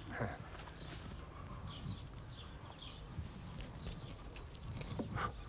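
Quiet outdoor ambience on a film soundtrack: a steady low rumble with a few faint bird chirps about two seconds in.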